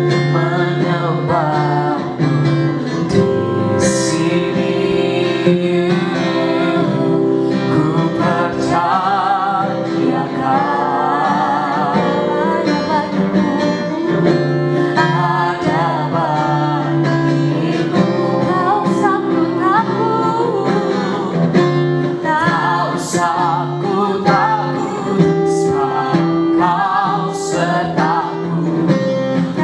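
A song: a voice singing with vibrato over guitar accompaniment.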